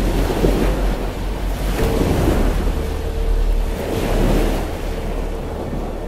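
Wind buffeting the microphone, with rumbling gusts over the wash of the sea and waves.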